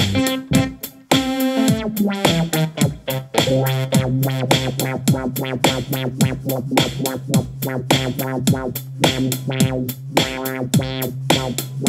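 Electronic background music with a steady beat. A low held bass note comes in about three seconds in.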